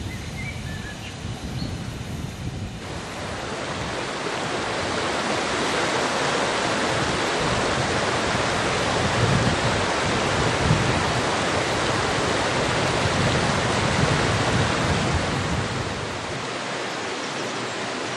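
Shallow river rushing over rocks: a steady wash of water noise that comes in suddenly about three seconds in and eases off near the end.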